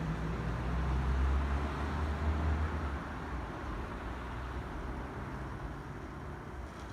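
Road traffic noise: a vehicle rumbles past in the first three seconds, then a steady hum of traffic.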